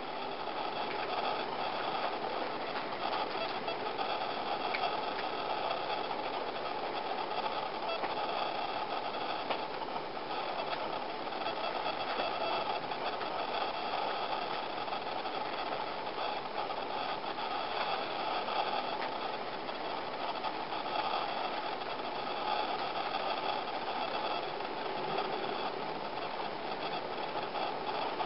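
A steady mechanical hum and hiss with faint high whining tones, unchanging.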